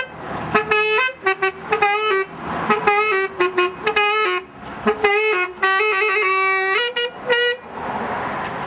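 Saxophone playing a melody in quick phrases of short notes, with brief gaps between phrases and a longer noisy pause without notes near the end.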